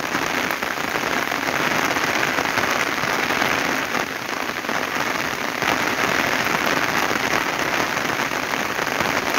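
Heavy rain pouring down steadily, a dense hiss of countless drops: the downpour has just picked up.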